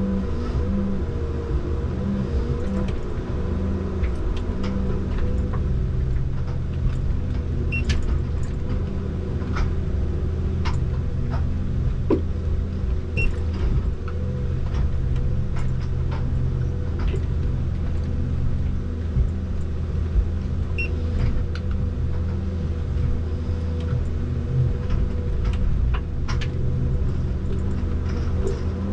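Komatsu 901 harvester's engine and hydraulics running steadily under load, heard from inside the cab. Scattered short sharp cracks and knocks come from the C93 harvester head as it grips, fells and feeds trees.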